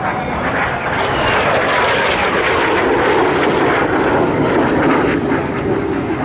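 Jet noise from a Kawasaki T-4's twin turbofan engines as the jet makes a close pass. It grows louder about a second in and holds, and its pitch sinks as the aircraft goes by.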